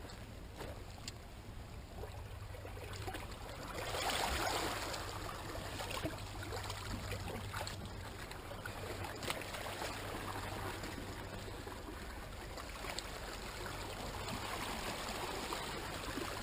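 Seawater washing over the rocks and spilling into a rock pool: a steady trickling rush that swells about four seconds in and again near the end.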